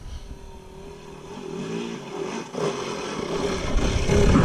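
Dirt bike engine running, getting louder over the last second or so.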